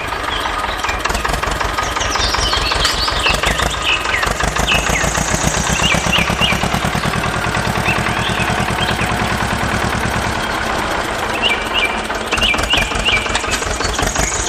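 A small engine running with a fast, even putter, with birds chirping over it.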